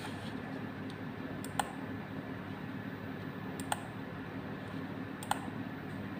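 A few sharp, isolated computer mouse clicks, roughly two seconds apart, over a steady low room hum.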